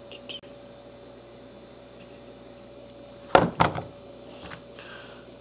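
Handling noise: a short cluster of knocks and rustles about three and a half seconds in, over a faint steady hum.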